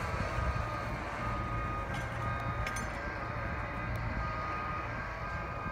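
Freight cars rolling slowly on yard track behind an EMD GP7 diesel switcher, a steady low rumble. A faint thin wheel squeal comes and goes, with a couple of sharp clicks about two and three seconds in.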